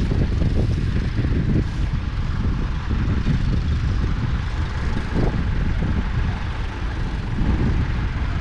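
1978 Ford 2600's 2.6-litre three-cylinder diesel engine idling steadily, a continuous low rumble.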